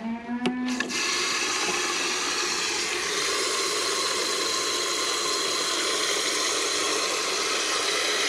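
Mains water rushing through the float (ball-cock) valve into a newly fitted tip-out drinker, a steady hiss that starts abruptly about a second in, after a couple of clicks and a brief squeal.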